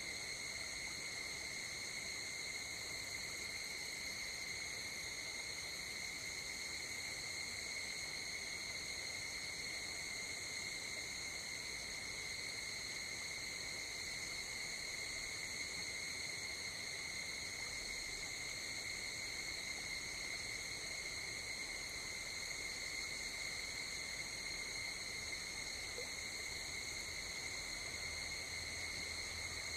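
Night insects' chorus in late summer: a steady, high-pitched ringing drone with several pitches sounding at once.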